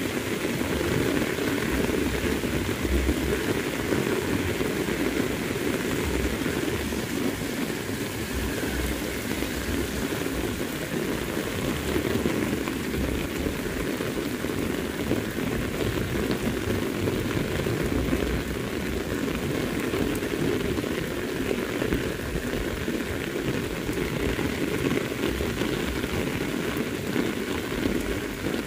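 Very heavy rain falling steadily.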